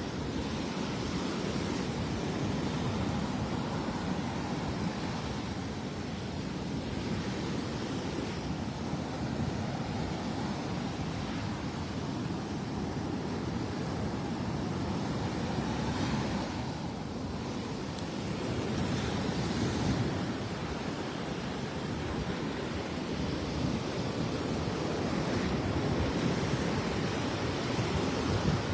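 Gulf of Mexico surf breaking and washing up the beach, a steady rush that swells and eases every few seconds.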